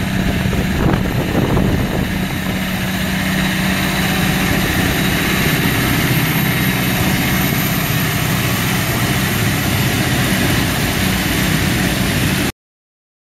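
Valtra N174 tractor's 4.9-litre four-cylinder diesel engine running steadily at working revs. The sound cuts off suddenly near the end.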